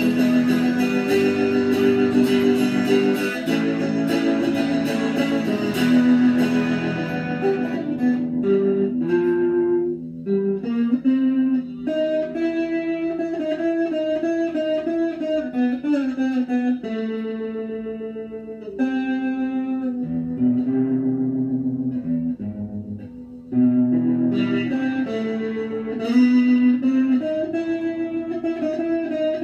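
Electric guitar played solo: picked melodic lines with some held notes. The playing eases off briefly twice in the middle before picking up again.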